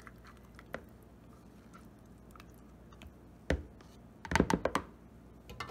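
A spatula and measuring cup knocking against a mixing bowl as thick canned pumpkin is scraped and shaken out of the cup onto flour. A few faint clicks, one knock about three and a half seconds in, then a quick run of louder knocks near the end.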